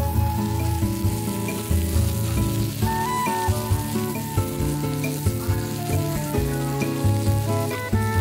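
Instrumental background music with a steady bass line, over the sizzling of vegetables (corn, onion slice and cabbage) laid on a hot barbecue grill.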